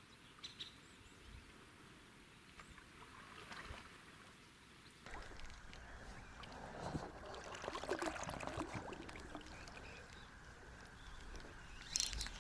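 Faint sounds of a small boat drifting on a river: water splashing and knocks against the hull. They start after a few seconds of near silence, with a short burst of clicks near the end.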